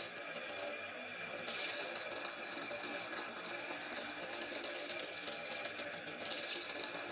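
Electric jigsaw running steadily as its blade cuts through wood, with a constant high motor whine and a harsher, brighter cutting sound that rises for a few moments near the end.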